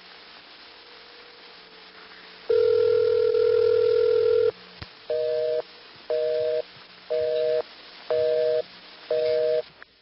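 Bell System ESS (electronic switching system) ringback tone heard over a phone line: one steady ring about two seconds long. A beeping two-tone busy signal follows, five short beeps about one a second.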